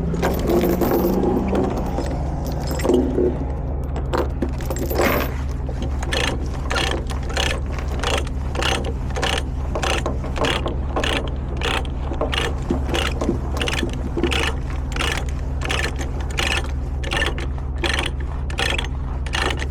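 Ratchet chain binder being cranked tight on a load-securing chain, clicking evenly about twice a second, after a few seconds of chain clanking and scraping. An engine idles steadily underneath.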